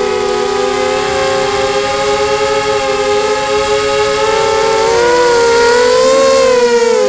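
QAV250 quadcopter's four 2204 2300Kv brushless motors spinning 5x3 propellers in flight: a loud, steady whine of several tones together. About five seconds in, the pitches rise and fall as the motor speeds change.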